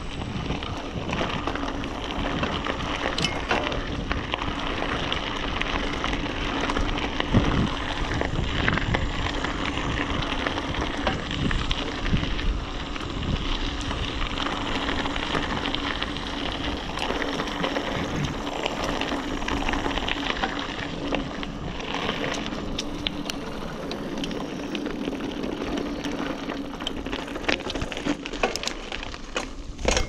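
Specialized Rockhopper hardtail mountain bike ridden over a dirt trail: a steady rush of tyre noise on dirt and gravel with scattered clicks and rattles from the bike, and a faint steady hum underneath.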